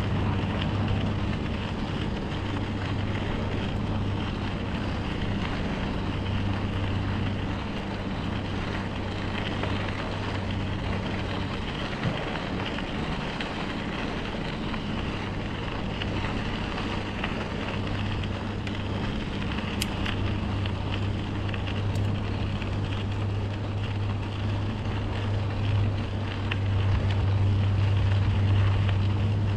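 Riding noise from a bicycle moving along a rail trail: wind on the microphone and rolling tyres, with a steady low hum that fades in the middle and comes back stronger near the end.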